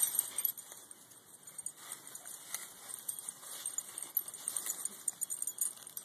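Two dachshunds digging into pine straw and soil: irregular scratching and rustling of paws and noses in dry needles and dirt, with collar tags jingling.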